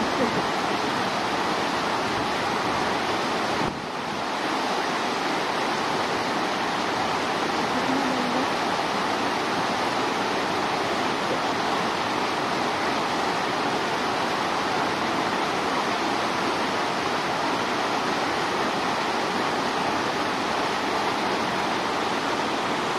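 Steady rush of water flowing in a hot spring pool, even and unbroken, dipping briefly about four seconds in.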